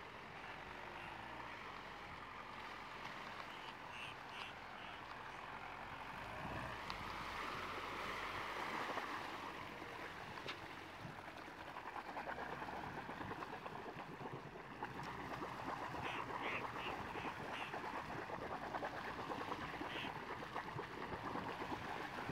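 Water splashing and churning around the wheels of a Land Rover Freelander 2 wading through a shallow lake, with its engine running low underneath. The splashing swells about seven seconds in and again from about twelve seconds.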